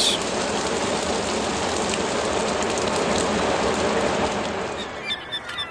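Steady rushing noise of water, easing near the end, with a few faint short calls in the last second.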